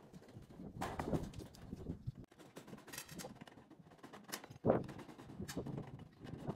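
Aviation tin snips cutting sheet-metal roof flashing in short, irregular crisp cuts, with the thin metal sheet rattling as it is handled and bent; the loudest sharp click comes just under five seconds in.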